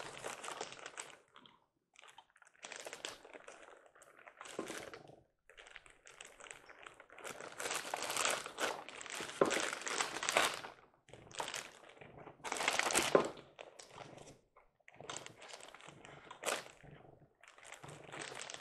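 Packaging crinkling and rustling in irregular bursts, with a few small knocks, as a boxed model train locomotive is unpacked.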